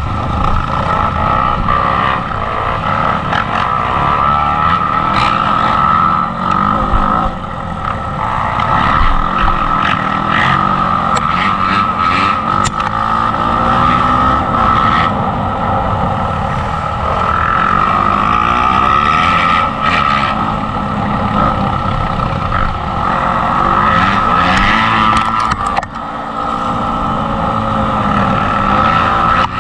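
Off-road motorcycle engine heard from on board, revving up and falling back again and again as the bike is ridden along a dirt track, with occasional sharp knocks and rattles.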